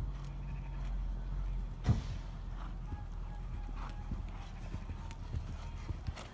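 Horse's hooves striking a sand arena surface during a show-jumping round, with one heavy thud about two seconds in as the horse lands over a fence, followed by irregular softer hoofbeats.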